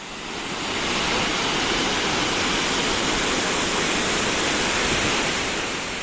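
Muradiye Waterfall's wide, multi-tiered cascade rushing steadily, fading in over about the first second.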